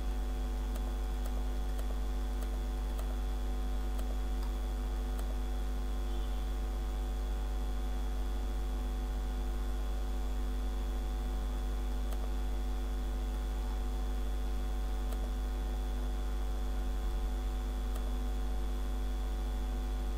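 Steady electrical mains hum picked up by the recording, with a faint higher steady whine over it, and a scattering of faint clicks.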